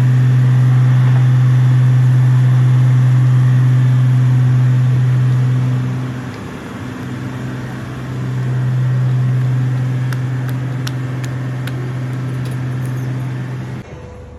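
Loud, steady low engine-like hum that dips briefly midway and cuts off suddenly near the end, with a few light clicks late on.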